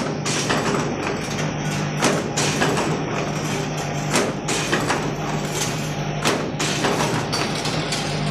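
Wire bucket-handle making machine running: a steady hum under dense metallic clatter, with sharp knocks coming irregularly about once or twice a second.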